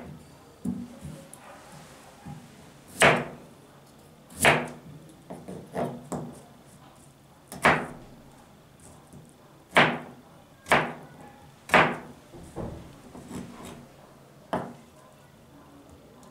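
Kitchen knife chopping a vegetable on a plastic cutting board: about a dozen sharp, separate knocks, spaced unevenly, mostly a second or so apart.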